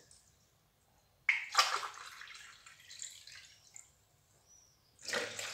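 A glass of hot water poured into a mixing bowl for bread dough: a sudden splash about a second in that trails off over a couple of seconds. A second burst of sound starts near the end.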